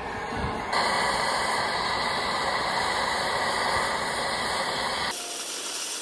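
Oxy-fuel cutting torch hissing steadily as it cuts steel. The hiss jumps louder just under a second in and drops away abruptly about five seconds in.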